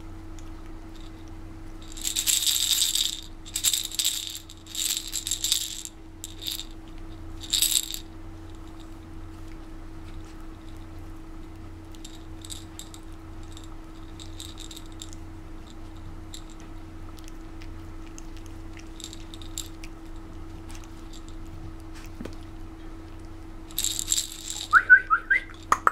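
A fluffy yellow rattle toy shaken in quick bursts to get a puppy's attention: several hard shakes in the first eight seconds, lighter ones through the middle, and hard shakes again near the end, where a few short high squeaks join in. A steady low hum runs underneath.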